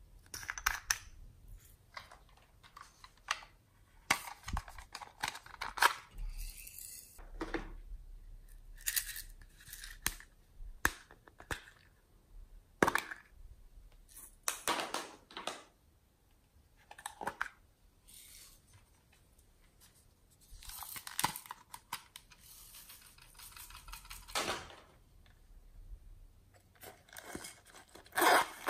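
Small plastic pots and a bottle of glitter being handled, opened and shaken over slime: irregular clicks, taps and short rustling pours, with a loud burst of handling noise near the end.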